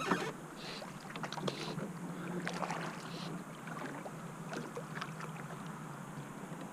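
River water lapping and splashing around a drifting boat, with a few scattered light knocks.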